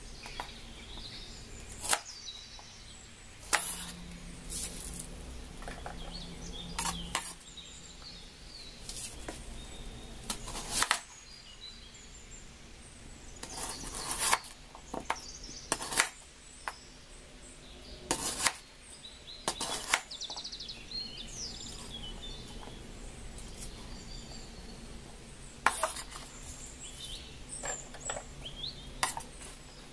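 Kitchen knife cutting green capsicum and onion on a wooden cutting board: sharp knocks of the blade on the board, unevenly spaced, in short runs.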